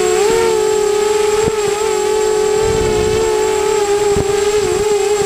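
RC aircraft's motor and propeller running steadily in flight, a constant buzzing whine whose pitch wavers slightly with throttle and manoeuvring. Two faint clicks come about a second and a half in and again near the end.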